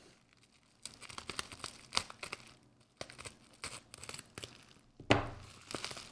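A folding knife blade slicing open bubble wrap, the plastic crinkling and crackling in short scattered bursts with brief pauses between, and a louder burst about five seconds in.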